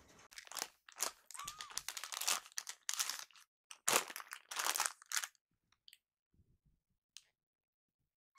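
Irregular crinkly rustling and scratching as small kittens clamber over a shaggy rug and fleece blanket, with one short faint kitten mew about one and a half seconds in. It falls to a few soft clicks for the last few seconds.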